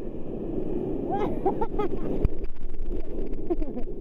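Whitewater from broken waves rushing and churning around the surfers, with a sharp knock a little past halfway. Short vocal exclamations rise over the surf about a second in and again near the end.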